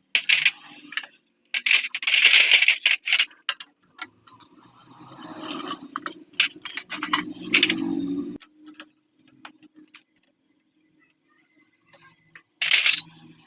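Metal hand tools and parts clinking and clattering in short bursts, with sharp clicks between them, as work begins on opening up a motorcycle engine.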